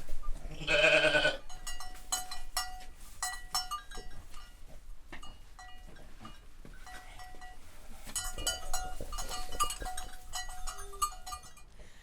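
A farm animal bleats once, about a second long, near the start. Then bells on livestock clank in irregular rings as the animals move, thinning out and fading toward the end.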